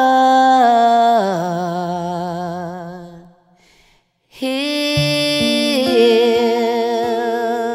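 Music: a voice holding long notes with a wavering vibrato, with no words sung, in two phrases split by a short break about three and a half seconds in.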